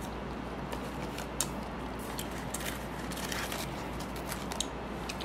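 A person eating French fries: soft chewing and scattered small clicks from handling the food and its paper packaging, over a steady low hum.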